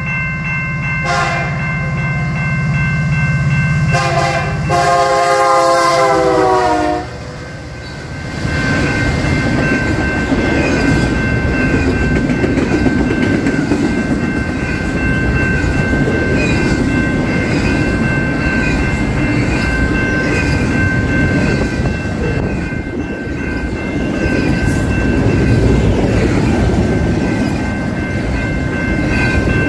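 Train horn: a short blast, then a longer chord whose pitch drops as the train goes by. The train then rolls past with a loud, steady rumble and clatter of wheels on the rails.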